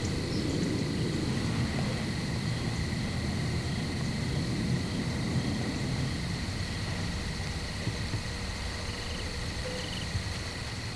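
Evening outdoor ambience: a steady high-pitched insect drone, typical of crickets, over a continuous low rumble.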